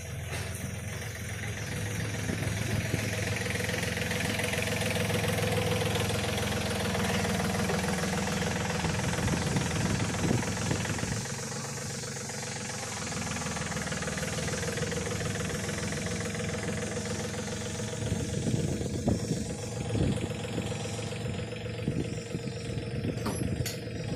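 An off-road vehicle's engine running steadily, with scattered knocks and rattles that come more often in the last few seconds.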